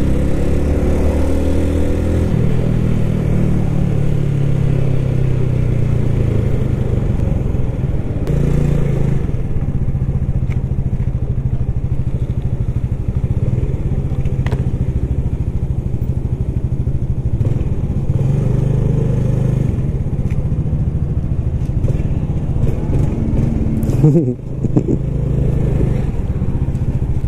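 Yamaha Lagenda 115ZR's two-stroke single-cylinder engine heard from the rider's seat, its pitch falling over the first couple of seconds as the bike slows, then running low and steady at walking pace, with a short change in pitch near the end.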